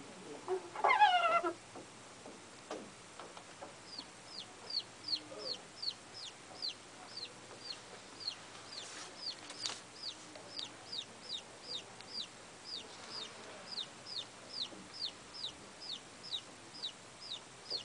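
Recorded animal sound played from a laptop in a hearing test. About a second in there is one short, loud, wavering call. Then, from about four seconds in, comes a rapid series of short, high, falling chirps, two or three a second, like a bird or chick peeping.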